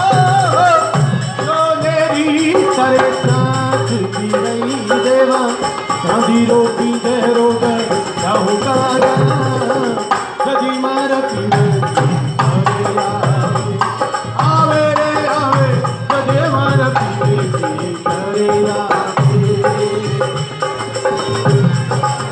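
Live Rajasthani folk music: sung vocals over a steady drum beat and hand percussion, played without a break.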